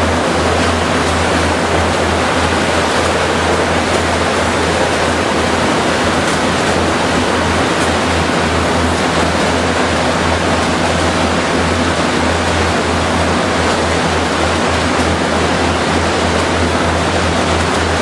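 Steady, loud machinery noise with a constant low hum and no distinct events.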